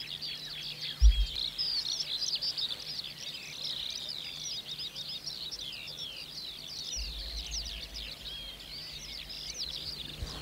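Many songbirds singing at once: a dense chorus of quick, high chirps and trills overlapping throughout. A sharp low thump about a second in and a brief low rumble around seven seconds in sit under it, over a faint steady low hum.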